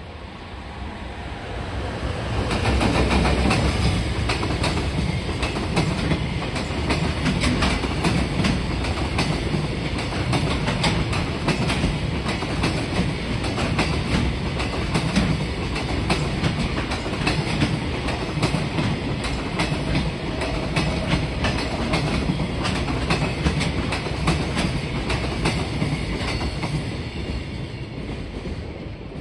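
Container freight train, an EF210 electric locomotive hauling Koki container flatcars, passing close by. It grows louder over the first few seconds, then the wagons' wheels keep up a steady, rapid clickety-clack over the rail joints.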